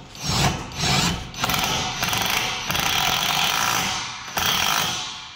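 PUMA PM-233BL 20 V cordless impact driver driving a screw, its hammer mechanism rattling fast and steadily under load. It fades near the end as the screw seats.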